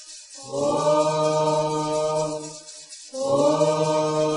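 Voices chanting a Yoruba song for Xangô in long held notes. There are two sustained phrases, the first beginning about half a second in and the second about three seconds in.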